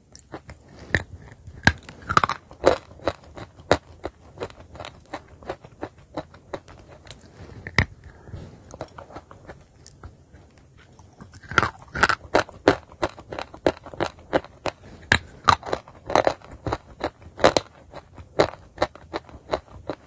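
Chalk being bitten and crunched between the teeth: a long run of sharp, crisp cracks and chewing crunches. They thin out and soften a little before halfway, then come faster and louder.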